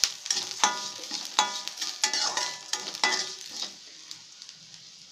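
Metal spatula stirring and scraping frying onions and moong dal around a metal kadai, each stroke making the pan ring, over a light sizzle. The strokes come about every half-second to second and stop a little after three and a half seconds in, leaving only the faint sizzle.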